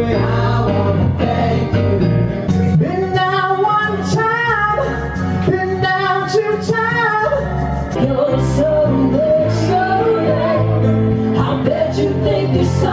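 Live band playing a rock song, with several male and female voices singing in harmony over acoustic guitar.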